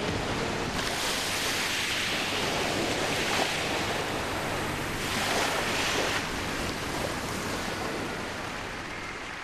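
Audience applauding, starting about a second in, swelling twice and easing off near the end.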